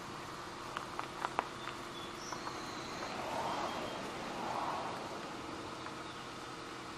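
Outdoor ambience: a steady hiss with a few faint clicks about a second in and brief faint high bird chirps a little over two seconds in.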